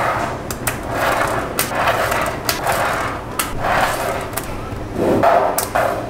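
Small magnetic balls clicking together and scraping as they are pushed into place. Sharp clicks come every second or so, between rough rolling and rubbing noises.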